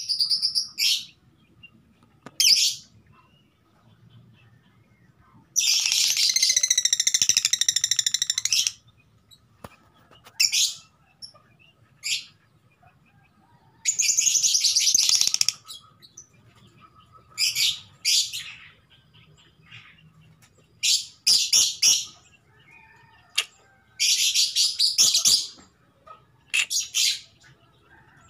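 Female Fischer's lovebird giving shrill, chattering calls in bursts separated by quiet pauses, the longest burst about three seconds. The calls are those of a female in breeding condition calling for a male.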